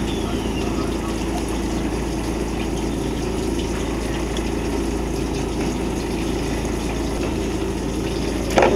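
Steady rush of water with a running boat engine underneath, heard aboard a small fishing boat at sea. A brief sharp sound comes near the end.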